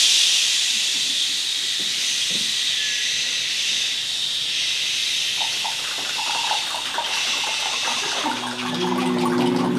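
A choir making a long, loud breathy hiss together that slowly fades. About eight seconds in, several low held voice notes join it.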